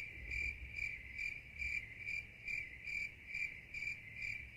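Cricket chirping: a clear high chirp repeating evenly about twice a second, with nothing else around it.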